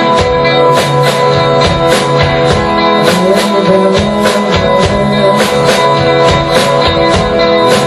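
Loud live band music: dense, held droning tones across many pitches over a steady percussive beat.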